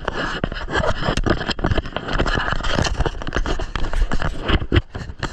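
Continuous scraping and rustling with many small irregular knocks.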